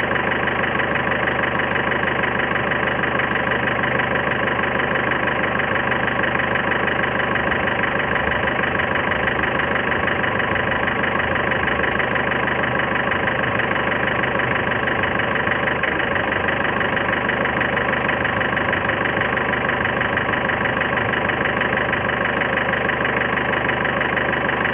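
2011 Ford Figo diesel engine idling steadily with a knock and a miss, which the owner links to the injectors needing service.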